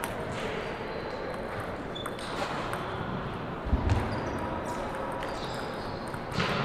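Light, scattered clicks of a table tennis ball bouncing, heard in a large hall. A few heavier dull thumps come about four seconds in.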